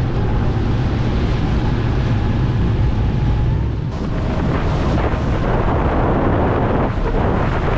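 RIB boat under way: its engine running under heavy wind buffeting on the microphone. The wind noise grows louder about halfway through.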